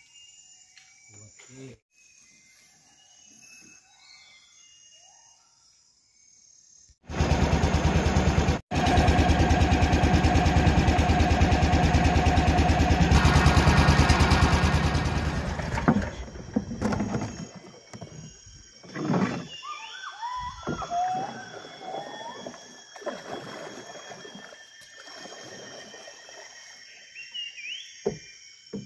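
A small motorboat's engine running loud as the boat travels upriver. It starts about seven seconds in, drops out briefly a little later, and stops about sixteen seconds in. Before and after it, birds call over a faint steady insect drone.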